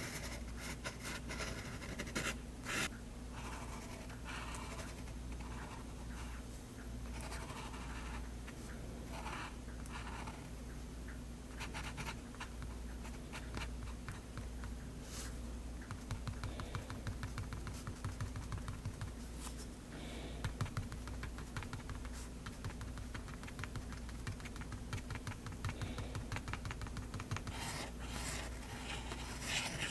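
Extra-fine nib of a Faber-Castell Hexo fountain pen scratching across drawing paper in many short, quick strokes.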